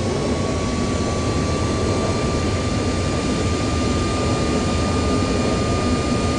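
Airliner's jet engines spooling up in reverse thrust on the landing roll just after touchdown: a loud steady roar with a thin whine slowly rising in pitch, heard from the flight deck.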